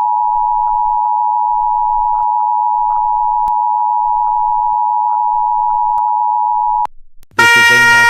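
Steady, loud electronic two-note tone of an Emergency Alert System-style attention signal, cutting off about seven seconds in. Half a second later a louder chord of synthetic tones starts, stepping between pitches.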